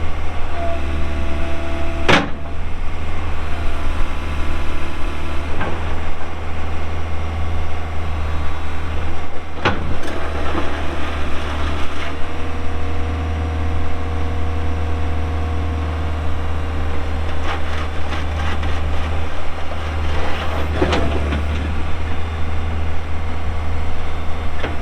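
Case CX160 excavator's 110 hp Cummins diesel running with a steady low drone and a whine over it that drops in pitch about twelve seconds in, as the machine is worked. Several sharp clanks stand out, the loudest about two and ten seconds in.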